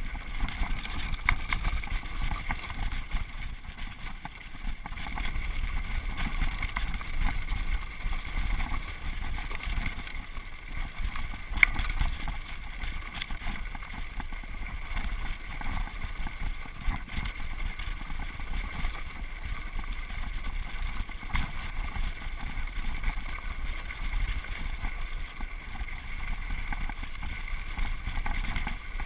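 Wind buffeting the microphone over the rumble and rattle of a mountain bike riding fast down a rough, rocky dirt trail, with small knocks from the bike over bumps throughout. One sharp knock stands out about twelve seconds in.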